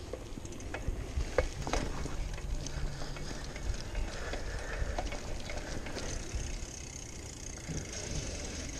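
Bicycle being ridden, with wind rumbling over the microphone, tyre noise, and the bike's rattles and clicks; a few sharper knocks come about a second and a half in.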